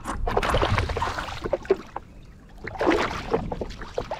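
Water splashing and sloshing beside a stand-up paddleboard as a hooked tarwhine is brought to the surface. The splashing comes in two noisy spells, the first at the start and the second about three seconds in.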